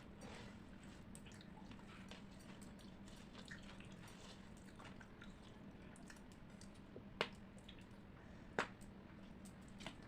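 Faint, wet close-up eating sounds of rice and chicken curry, with small moist clicks and squishes and two sharper clicks, about seven and eight and a half seconds in. A steady low hum sits underneath.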